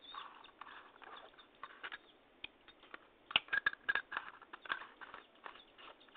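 Irregular light clicks and taps of a plastic flashlight body and its wires being handled, with a quick cluster of sharper clicks about three to four seconds in.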